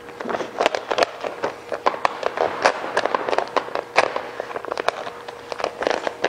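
Chrome vinyl wrap film crackling and popping irregularly as it is lifted and stretched over a grille, its adhesive snapping free of the surface while wrinkles are worked out.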